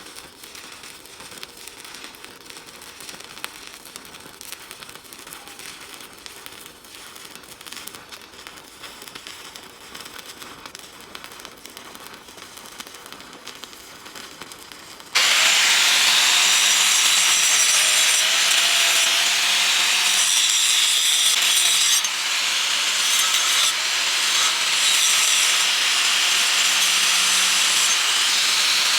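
Stick-welding arc crackling steadily. About halfway through, a much louder, harsh, steady hiss starts suddenly, with a faint wavering whine under it.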